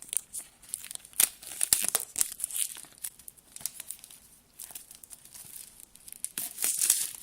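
Unboxing of an iPhone 5s: packaging being handled and unwrapped, with crinkling, tearing and rustling and many small clicks. It is busiest in the first three seconds and again near the end.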